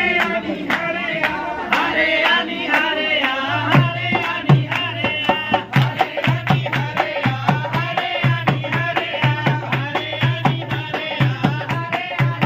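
Punjabi folk wedding song: a voice sings over sharp percussive strikes, and a low drum beat comes in about three and a half seconds in.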